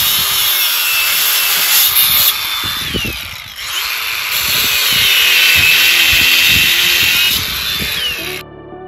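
Handheld power tool running under load, its whine sagging and recovering in pitch. It eases off briefly about three seconds in, then runs again and cuts off near the end.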